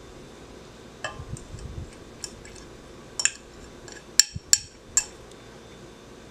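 A metal can of condensed milk clinking and tapping against the rim of a glass blender jar as it is tipped and emptied into the jar. About seven sharp clinks, most of them coming close together past the middle.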